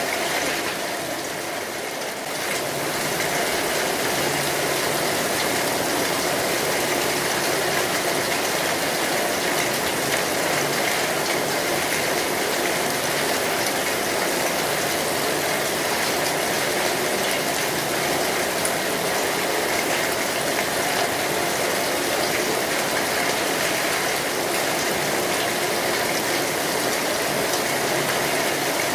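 Steady rain falling on an umbrella, an even hiss of drops. It dips briefly in loudness about a second in, then carries on unchanged.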